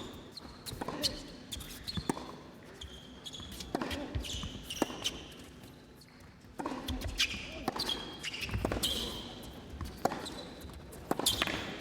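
A tennis rally on an indoor court: a string of sharp racket strikes and ball bounces, with short high squeaks of players' shoes on the court.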